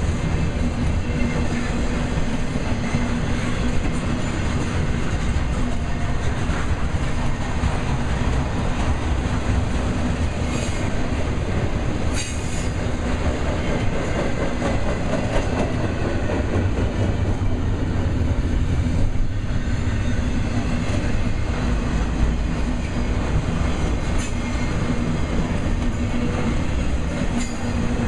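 Intermodal freight cars rolling past on the main line: a steady rumble of steel wheels on the rails as trailer-carrying spine cars and double-stack container well cars go by.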